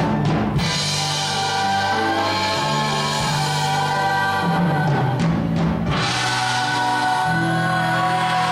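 Instrumental accompaniment from a stage musical: sustained chords over a low bass line that moves to a new note every second or so.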